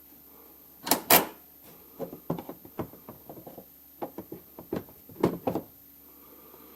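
Knocks and clatter of a car's center console being handled and tried in place over the gear shifter: a loud double knock about a second in, scattered clicks and taps, and another cluster of loud knocks near the end.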